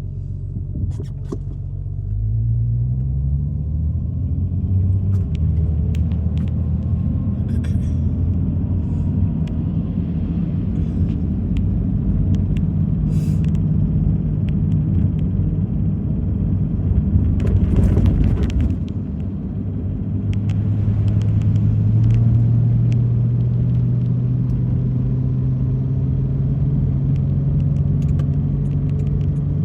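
Car driving, heard from inside: a steady engine hum with road noise, its pitch climbing in steps about two seconds in as it speeds up. A brief louder rush comes about eighteen seconds in, and scattered light ticks run through it.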